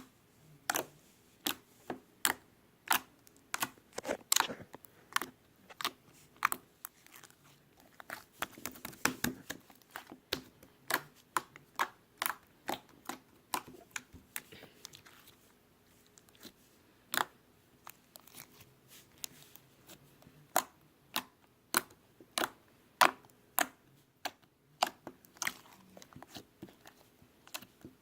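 Creamy fluffy slime being squeezed and folded by hand, air pockets bursting in sharp wet pops, irregular at about one or two a second, with a quick flurry of pops about nine seconds in.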